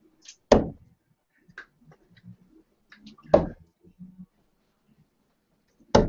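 Darts striking a bristle dartboard: three sharp thuds, about three seconds apart.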